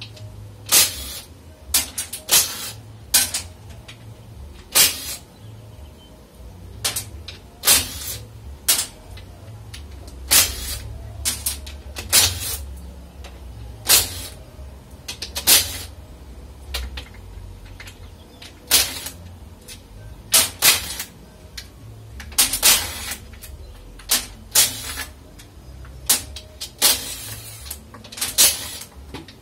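Cordless impact wrench run in about two dozen short bursts, spaced irregularly, as it loosens and spins out bolts on a Ford AOD/4R70W automatic transmission case during teardown.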